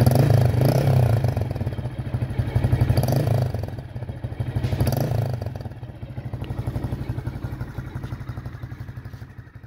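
Honda MSX125SF's 125 cc single-cylinder four-stroke engine idling through a TYGA aftermarket exhaust, with a steady rapid pulse. It swells briefly three times, just after the start, about three seconds in and about five seconds in, then grows quieter and fades out at the end.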